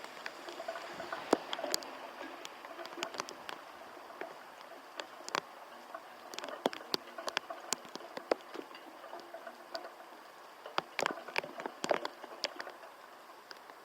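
Rain falling in a steady hiss, with drops landing close by in irregular sharp taps and ticks, thickest around eleven to twelve seconds in.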